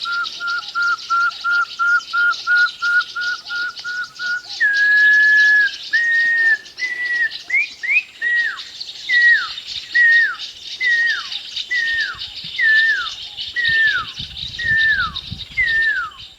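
A series of clear, pure whistles. First comes a rapid run of short notes on one pitch, about three a second. About four seconds in there is a held note a little higher, and then a string of notes that each slur sharply downward, about one a second. A steady high hiss runs underneath.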